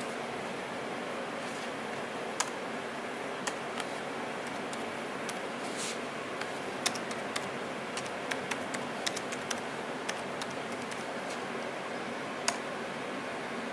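Typing on an ASUS ROG gaming laptop keyboard: separate key clicks, a few at first and then a quick run of them in the middle, over a steady hiss.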